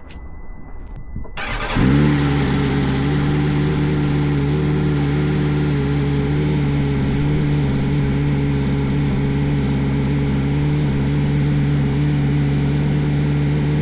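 BMW S1000RR's inline-four engine, breathing through a freshly fitted SC Project slip-on exhaust, starts about a second and a half in and settles into a steady idle.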